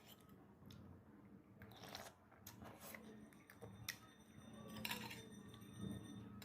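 Faint eating sounds of a person chewing instant noodle soup with meatballs, with a few short clicks scattered through, over a low hum.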